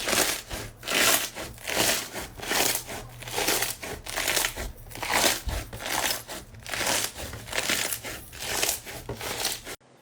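Slime being squeezed and pressed by hand, crackling and crinkling in repeated strokes about one and a half times a second; it cuts off suddenly near the end.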